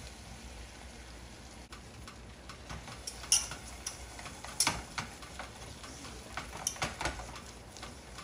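Wire whisk clicking and scraping against a nonstick saucepan as flour is whisked into melted butter for a roux, over a faint sizzle. The clicks are irregular and start about two seconds in, the sharpest about three and four and a half seconds in.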